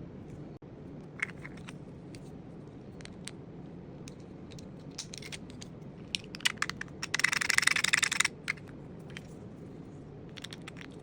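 Scattered sharp clicks and snaps of small plastic parts being worked by hand, with a dense burst of rapid clicking lasting a little over a second about seven seconds in.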